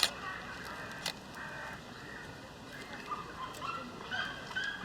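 Short, high animal calls scattered through a zoo's background sound, with a sharp click at the start and another about a second in.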